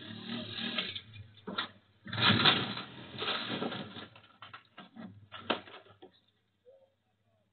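An ATV engine running, then a loud clattering crash about two seconds in as the ATV comes off the loading ramps, followed by a string of sharp knocks and bangs. The engine sound stops about six seconds in. Heard through a doorbell camera's thin-sounding microphone.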